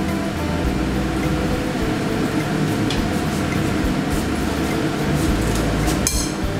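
Dough sticks (cha kway, fried Khmer dough) deep-frying in a skillet of hot oil, sizzling steadily. About six seconds in, a metal mesh strainer scrapes and clinks against a bowl.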